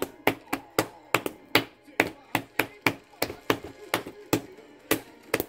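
Hands tapping on a tabletop: sharp knocks, about four a second, in a slightly uneven rhythm.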